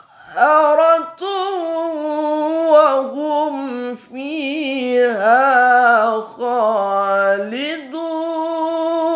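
A man chanting Quranic recitation (tilawah) alone and unaccompanied in maqam sikah. He draws out long melismatic phrases with wavering ornaments, broken by a few short pauses.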